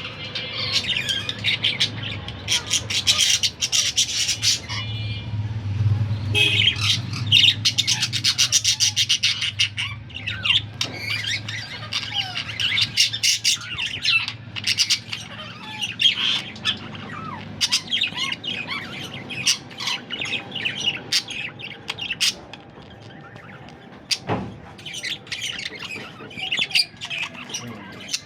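Male budgerigars chattering continuously, with overlapping chirps, warbles and rapid clicking trills and occasional squawks.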